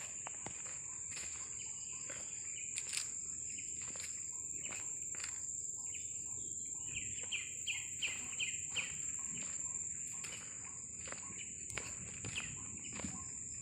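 A steady high-pitched insect drone, with a bird calling a quick run of repeated notes, about four a second, for a couple of seconds near the middle. Scattered clicks and rustles of footsteps on dry leaves and palm fronds.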